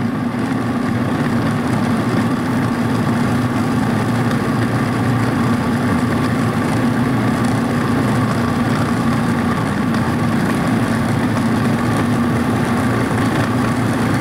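Breville Sous Chef food processor motor running steadily at a constant pitch, its blade churning flour and water into bread dough. The dough is still at the shaggy, crumbly stage and has not yet formed a ball.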